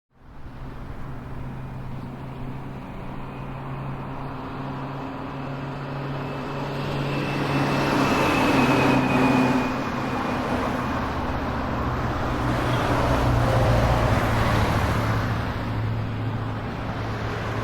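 Steady car road and engine noise, a low hum under a broad rush, swelling a little around the middle.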